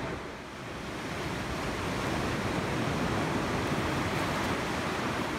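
Steady rushing of ocean surf, an even hiss with no distinct breaks.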